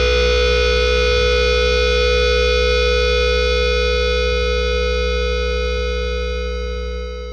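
Final held chord of a stoner rock song: distorted electric guitar and bass sustained and ringing out, slowly fading near the end.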